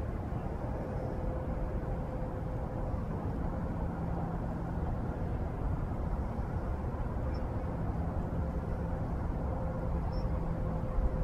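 Steady low rumble with a constant mid-pitched hum, typical of an idling car engine.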